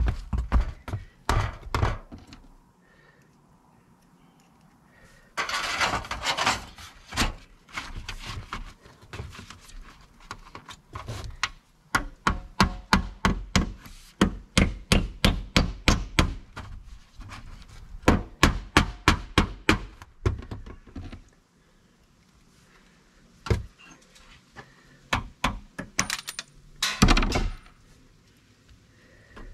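Claw hammer striking metal flashing against a wooden platform frame, a long quick run of blows in the middle at about two or three a second. A couple of short scraping noises from the sheet metal being handled.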